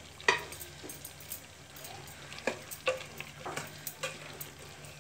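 A spoon stirring chickpeas and spices in a metal pot, knocking and scraping against the pot about a dozen times, over a faint sizzle of the simmering curry.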